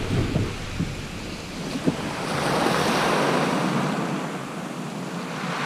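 Small waves washing on a shingle beach: a hiss of surf that swells about two seconds in and fades away, with some wind rumble on the microphone at first.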